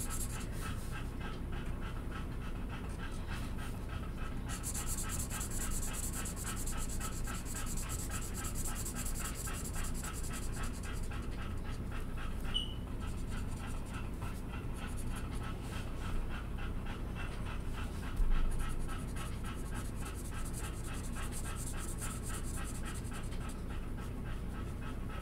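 A dog panting in a quick, steady rhythm over a low steady hum.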